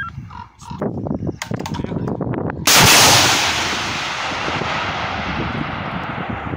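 Anti-tank guided missile fired from a tripod launcher: a sudden loud launch blast about two and a half seconds in, then a hiss that fades slowly over several seconds. Scattered knocks and rustles come before the launch.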